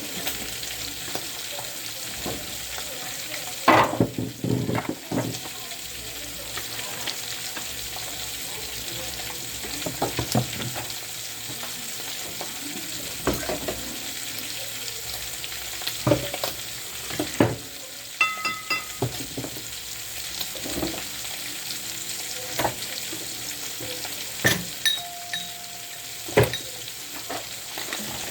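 Objects and containers knocking and clattering as they are handled, with a short ringing clink near the middle, over a steady hiss.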